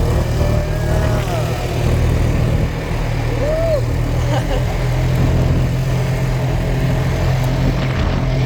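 Four-wheeler (ATV) engine running steadily while being ridden at low speed.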